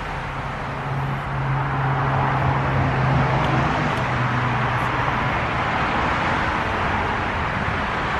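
Road traffic noise from a nearby street: a steady rush of passing cars, with one vehicle's engine hum swelling about a second and a half in and fading after about five seconds.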